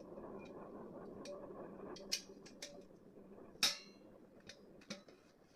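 A few light clicks and one louder, briefly ringing metallic clink, as a brass handi and its lid are handled, over a faint steady hum.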